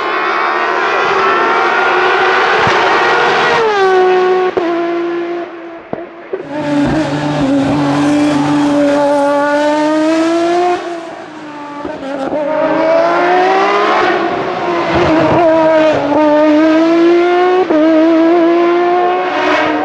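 Sports prototype race car's engine revving hard under full throttle, its pitch climbing and then dropping sharply at each upshift, heard over several successive passes with short dips in level between them.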